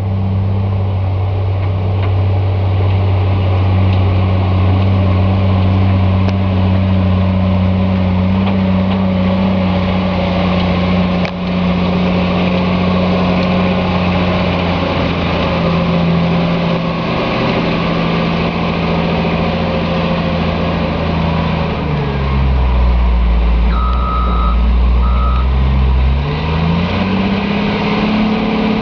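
Caterpillar 966H wheel loader's diesel engine running steadily under load. Its engine speed drops about three quarters of the way through and then climbs back. A reversing alarm beeps twice as it drops.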